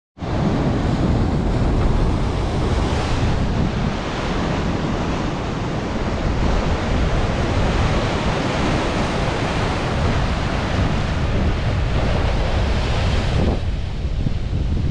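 Rough ocean surf breaking and washing over the boulders of a rock seawall, a steady loud rush of water, with wind buffeting the microphone underneath. The hiss eases slightly near the end.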